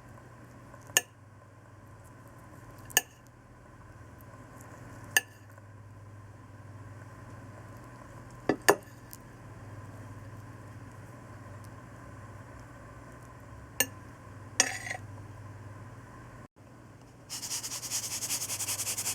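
Several sharp clinks of cutlery against a plate, a few seconds apart, over a faint hum. Near the end comes a rapid, gritty rattling as salt is put on the sliced egg.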